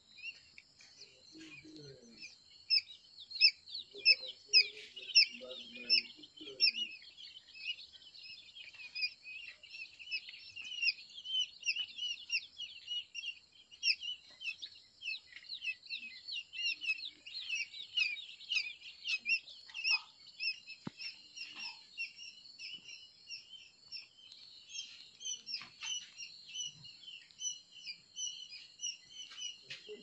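Newly hatched quail chicks peeping: many short, high chirps overlapping in a continuous chorus, loudest a few seconds in.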